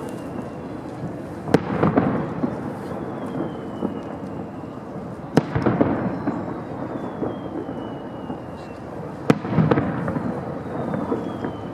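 Fireworks display: three sharp shell bursts about four seconds apart, each followed by a rumbling crackle, with thin whistling tones sliding down in pitch between the bangs.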